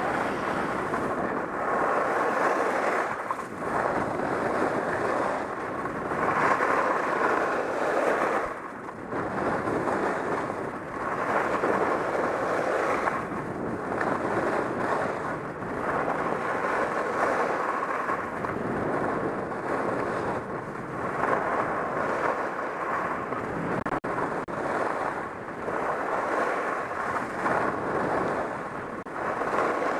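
Wind rushing over a helmet-mounted camera's microphone while skiing fast downhill, mixed with the hiss of skis on groomed snow. The rushing swells and eases every second or two.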